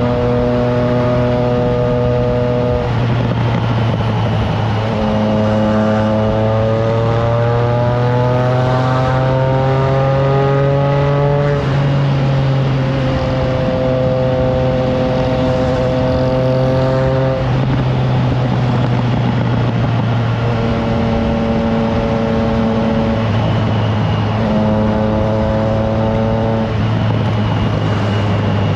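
Triumph Trident 660's inline three-cylinder engine running through a FireTong aftermarket exhaust while riding, mostly holding steady, with the pitch climbing gradually for several seconds before dropping sharply about twelve seconds in and again a few times later. Wind noise on the microphone underneath.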